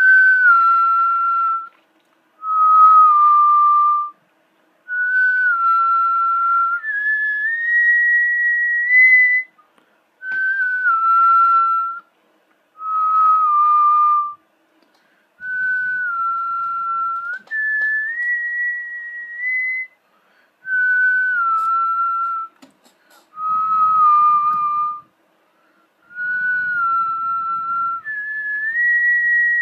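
Someone whistling a slow tune in short phrases with brief pauses between them; the same melody comes round again about every ten seconds.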